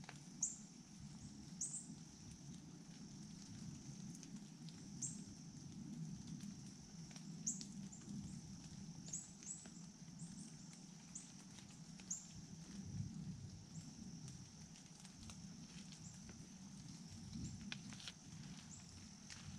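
Quiet woodland ambience: a steady high insect drone with short, high chirps every second or two over a faint low rumble. A couple of faint ticks come near the end.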